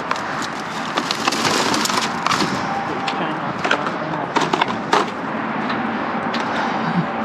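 Irregular knocks, clicks and clatters of objects being handled and shifted about, over steady background noise.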